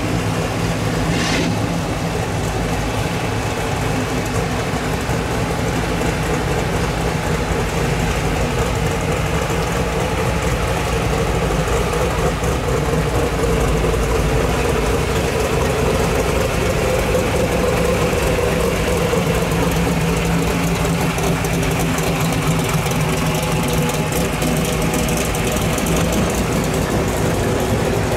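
Classic muscle car and hot rod engines running at low speed as the cars roll slowly past one after another, a steady exhaust note with no revving.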